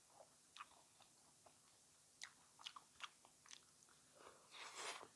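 Close-miked eating sounds: a person chewing a mouthful of food, with scattered soft mouth clicks and crackles and a louder, longer noisy chewing burst near the end.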